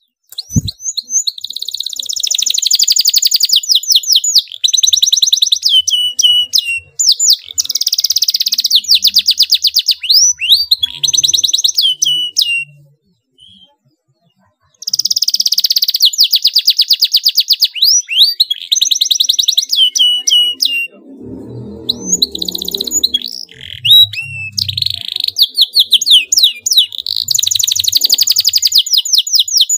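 Domestic canary singing hard in long phrases of very fast, tightly packed trills (rolls), high-pitched and loud, with a pause of about two seconds near the middle.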